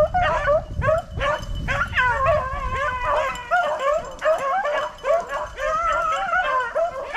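Pack of beagles baying on a rabbit's trail, several dogs' calls overlapping at once: the dogs are running the rabbit.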